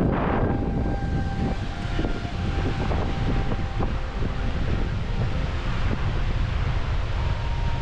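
Steady roar of the Skógafoss waterfall, a deep, even rush of falling water.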